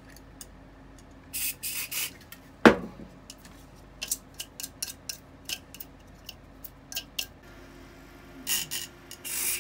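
Cleaning the dust off a dehumidifier's 80 mm cooling fan by hand: short rubbing strokes, a sharp knock about three seconds in, and many small clicks and taps of handling the fan.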